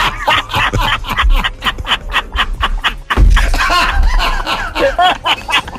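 Several people laughing hard, in quick repeated ha-ha pulses, with music playing underneath.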